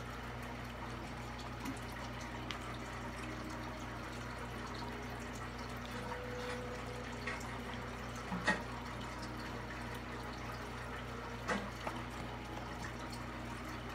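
Room tone: a steady low hiss with a faint electrical hum, and a couple of faint soft clicks about eight and eleven seconds in.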